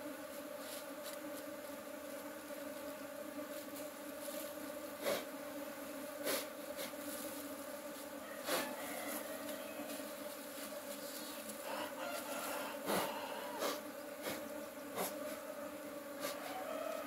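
Honeybees buzzing steadily in a dense swarm around an opened hive, a continuous hum. About half a dozen sharp knocks and clicks break through it from the wooden hive frames being handled.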